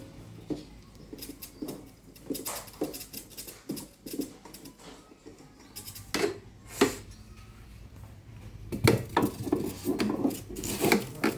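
Irregular knocks, taps and short rustles of objects being handled, as a computer monitor and its packaging are unpacked. The handling gets busier near the end.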